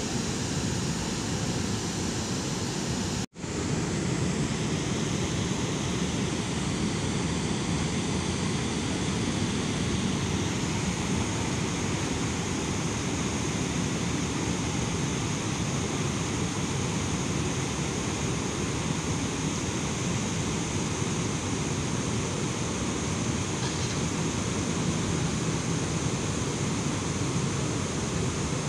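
Steady rushing outdoor noise by a river, broken by a brief dropout about three seconds in.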